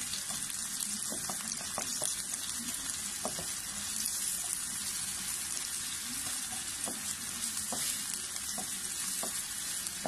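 Sliced onion, carrot and red pepper strips sizzling steadily in hot oil in a nonstick wok, stirred with a slotted spatula, with a few light clicks as it moves through the pan.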